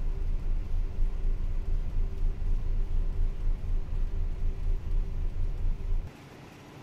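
Ship's engine room noise from a MaK medium-speed marine diesel main engine running at idle: a loud, pulsing low rumble with a steady hum over it. About six seconds in it drops abruptly to a much quieter hum.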